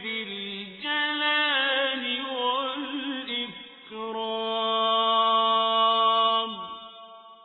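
A male voice reciting the Quran in a melodic, chanted style. It sings ornamented, wavering runs, then holds one long steady note from about four seconds in, which falls away and fades out near the end.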